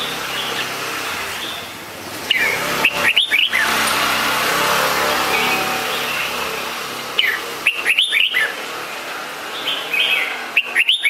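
Red-whiskered bulbul calling in three bursts of quick, sharp chirping notes a few seconds apart.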